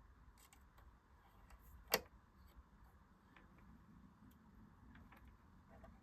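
Near silence with a few faint clicks and one sharp click about two seconds in, from handling the sewing machine; the machine is not running.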